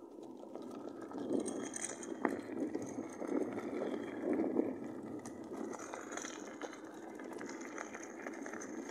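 Rustling, crunching noise of someone moving along a sandy forest track, with scattered small clicks and knocks of handling on the microphone.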